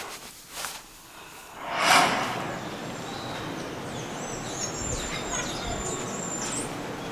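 A whoosh that swells and fades about two seconds in, the loudest sound, then steady outdoor background noise with small birds chirping faintly.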